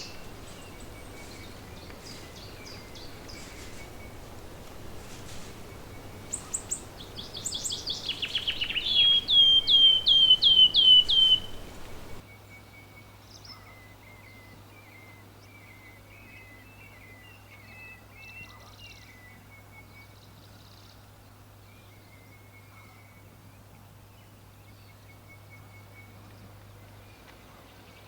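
Birds singing. A nearby bird gives a loud run of short notes repeated quickly, each sliding down in pitch, and this cuts off suddenly about twelve seconds in, leaving fainter scattered chirps.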